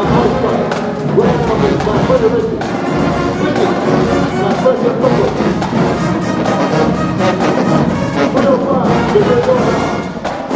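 Marching band playing: brass section with drums beating under it.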